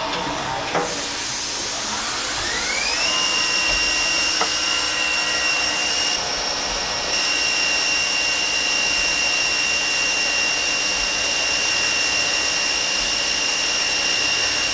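CNC milling machine spindle with a small drill spinning up: a whine rises in pitch about two to three seconds in, then holds steady and high over a constant hiss while it drills a row of small holes in black Delrin.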